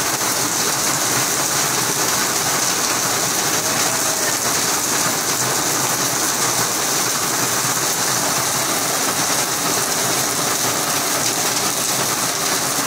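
Heavy rain falling steadily onto a flooded road and its standing water.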